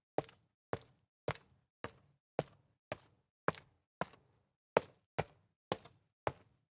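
Sneaker footsteps walking up concrete stairs: crisp, even steps at about two a second, around a dozen in all.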